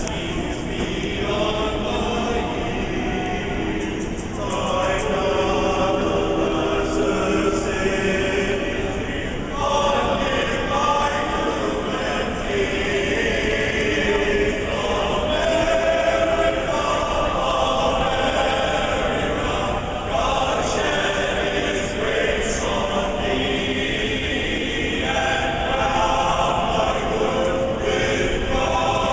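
A choir singing in unison, long held notes in phrases of a few seconds each.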